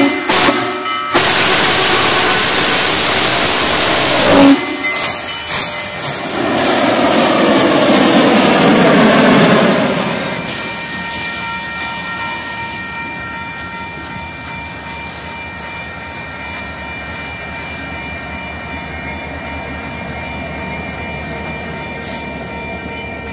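Union Pacific No. 844, an FEF-3 4-8-4 steam locomotive, passing close by. For the first ten seconds there is loud steam hiss and whistle, broken by short gaps near the start, with a sharp peak about four and a half seconds in. From about ten seconds the sound falls to the quieter, steady rolling of the passenger cars going by.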